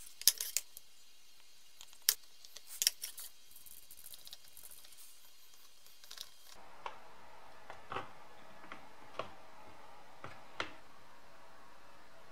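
Scattered light clicks and taps of a soldering iron and hands against a hard ABS plastic part as its edges are smoothed. The clicks are sharpest in the first three seconds and fainter after that.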